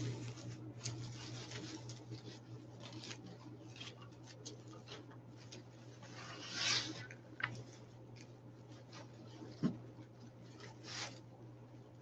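Faint rustling and crinkling of deco mesh and ribbon being handled and fluffed on a wreath form, with a few louder handling noises, over a low steady hum.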